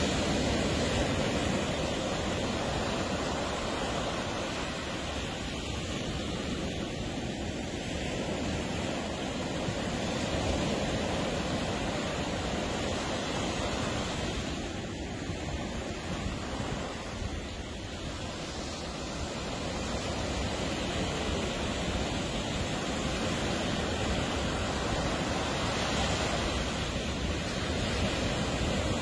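Ocean surf breaking on a beach: a steady rush of waves that swells and eases slowly, dipping a little about two-thirds of the way through.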